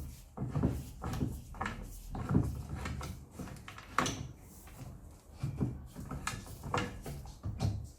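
Repeated wooden knocks and clunks with some sliding, wood on wood, as a homemade wooden table saw fence is moved along the saw and clamped.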